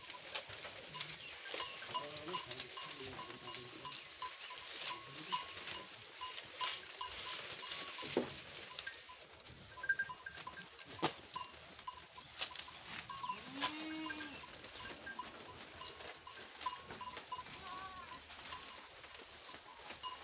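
A herd of goats feeding on leafy fodder: leaves rustling and twigs snapping in many short clicks, with one goat giving a single bleat about fourteen seconds in.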